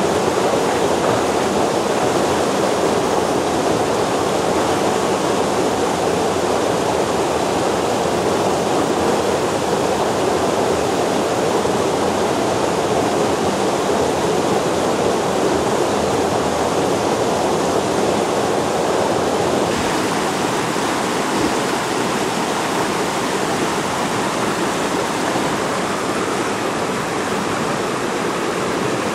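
Mountain stream water rushing steadily over rocks, a loud even hiss; about twenty seconds in its tone shifts abruptly to a slightly lighter rush.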